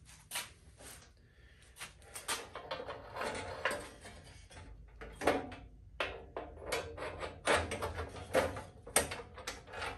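Irregular metal clinks and knocks as a steel pipe is fitted by hand across the back of a stripped Honda CT70 frame, setting the width at the rear.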